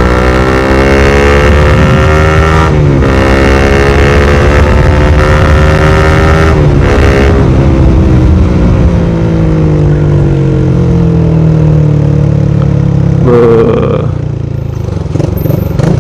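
Honda CBR150R's single-cylinder engine through a Daytona GP Taper racing exhaust, accelerating with rising pitch through two gear changes, then rolling off the throttle with falling pitch. It is quieter near the end.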